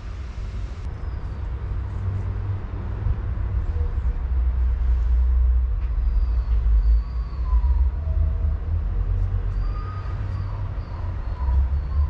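Outdoor background noise: a steady low rumble that swells and eases, with faint short high chirps now and then from about six seconds in.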